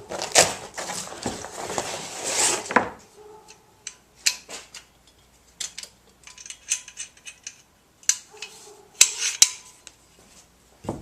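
Silky Katanaboy folding saw being taken out of its case and opened: about three seconds of scraping and rustling, then scattered light metallic clicks and clinks.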